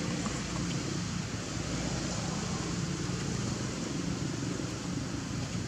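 A low, steady motor drone over constant background hiss.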